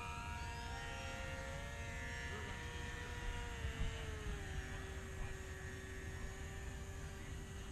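Whine of several racing quadcopter motors, a few steady tones slowly drifting in pitch, over a low rumble.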